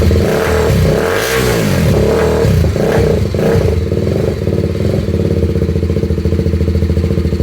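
BMW G310 RR's single-cylinder engine running through an aftermarket exhaust, revved in several quick blips, then settling about halfway through into a steady, pulsing idle.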